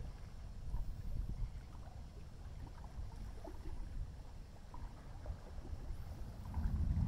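Low rumble of distant thunder from a passing thunderstorm, swelling louder near the end.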